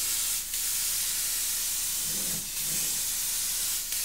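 Gravity-feed paint spray gun hissing steadily as compressed air sprays a coat of paint, with a few brief slight dips in the hiss.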